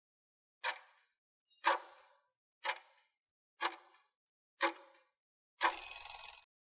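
Countdown timer sound effect: five sharp clock-like ticks, one a second, then a brief ring when the stopwatch reaches zero.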